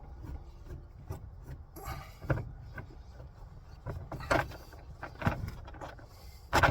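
Scattered small clicks and scrapes of a screwdriver working at a hidden screw in a plastic overhead console, over a low steady rumble.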